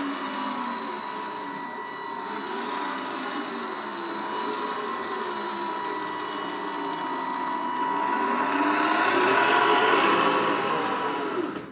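Tamiya 1/14 Knight Hauler RC truck's electric motor and gearbox whining as it drives, the pitch rising and falling with the throttle. It grows louder as the truck comes up close, about ten seconds in, then fades as it passes.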